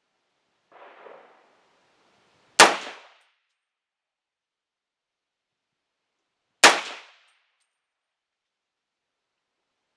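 Two rifle shots from a 300 Blackout AR-15, about four seconds apart, each a sharp crack with a short echo trailing off. A faint rustling noise comes about a second before the first shot.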